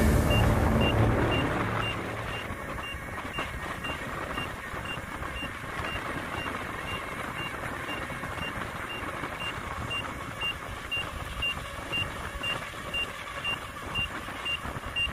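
Veteran Sherman electric unicycle beeping steadily as it is ridden, short high beeps about two a second, over rushing wind and tyre noise.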